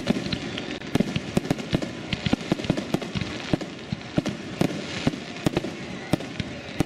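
Fireworks going off: a quick, irregular string of sharp bangs and cracks, several a second, over a steady hiss.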